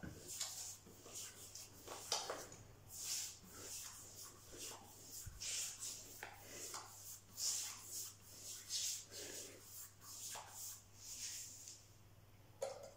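Paintbrush strokes of a watery mist coat on bare plaster: soft, irregular swishes of the bristles rubbing across the wall. Near the end there is a sharper tap as the brush goes back into the paint bucket.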